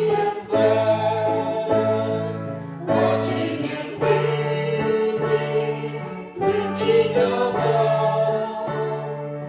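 A small mixed group of men's and women's voices singing a religious song together in harmony, accompanied by piano.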